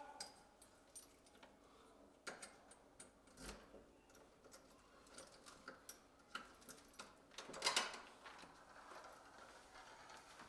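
Faint clicks and clinks of keys and a door lock and handle as a door is unlocked and opened, with the loudest clatter about eight seconds in.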